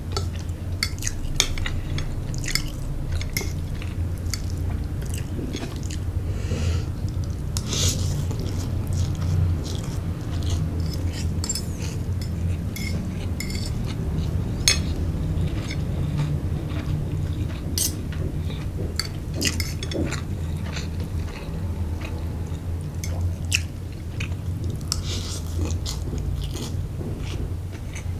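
Close-up chewing and slurping of fried rice vermicelli, with frequent small clicks of cutlery against a plate, over a steady low hum.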